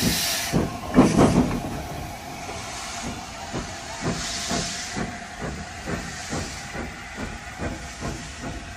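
Steam tank locomotive passing close by, hissing steam and chuffing, loudest about a second in; then its coaches roll past with a rhythmic clicking of wheels on the rails, about two knocks a second.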